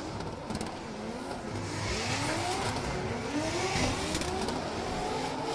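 Drift cars' engines, a 2JZ straight-six in a Nissan S14 and a 5-litre V8 in a Ford Mustang, revving hard and repeatedly, their pitch sweeping up again and again, over a steady hiss of tyre noise.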